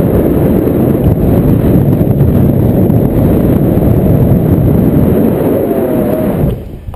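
Heavy wind buffeting the camera's microphone: a loud, steady low rumble that drops away sharply about six and a half seconds in.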